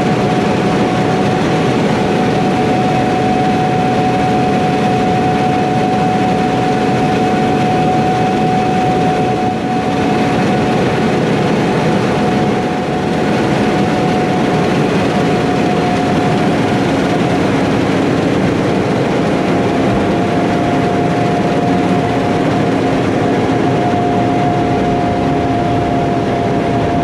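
Heavy harvest machinery running steadily under load: a deep engine drone with a high whine that slowly drops a little in pitch.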